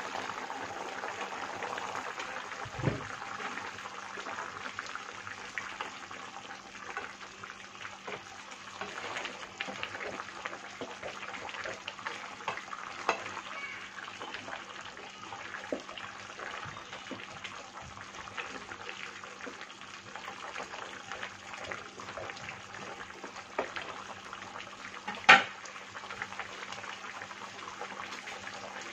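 Chicken pieces simmering in adobo sauce in a frying pan, a steady sizzling and bubbling, with a wooden spoon stirring and clicking against the pan now and then. One sharp knock late on is the loudest sound.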